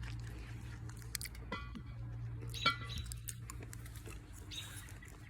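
Mouth noises of someone sucking and chewing a sour hard candy: small wet clicks and smacks, with two short voice sounds from the eater, the louder about two and a half seconds in, over a steady low hum.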